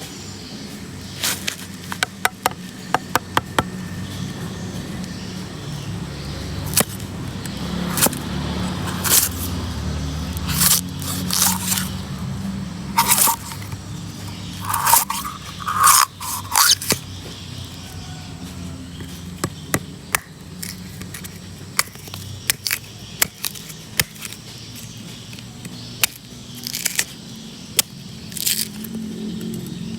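Coconut being worked open by hand: irregular sharp knocks and cracks on the shell, with scraping and crunching between them.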